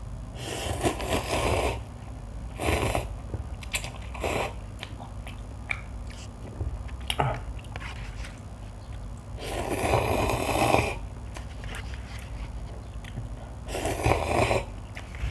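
Cup noodles being slurped off a fork in about five noisy slurps, the longest over a second near the middle, with faint clicks of the fork in the cup between them.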